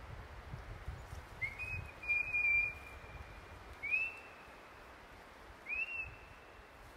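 Three rising whistled notes, each sliding up and then levelling off; the first is held for about a second and a half, the next two about a second and a half apart are short. A faint low rumble lies under them.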